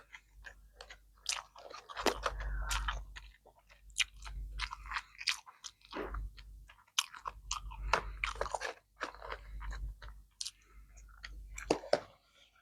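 A person chewing and biting food close to the microphone, with many irregular crunchy clicks and wet mouth sounds.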